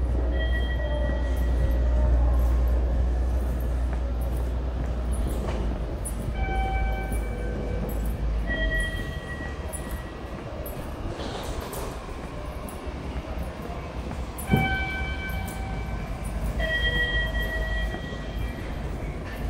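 A train passing with a deep rumble that fades over the first eight seconds or so. Several drawn-out high pitched tones, each a second or two long, sound on and off over it, and there is one sharp knock about two-thirds of the way through.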